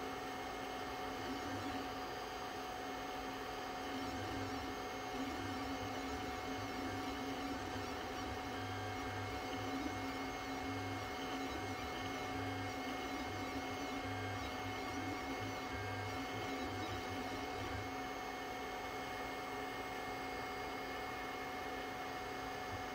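Steady electrical hum of a powered 3D printer, several fixed tones held without change, with a low rumble coming and going through the middle stretch.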